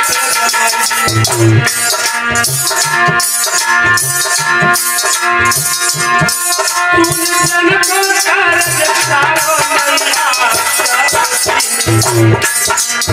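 Hindi devotional song to the goddess Durga: a man sings over harmonium, with a rattling percussion keeping an even beat and low drum strokes underneath.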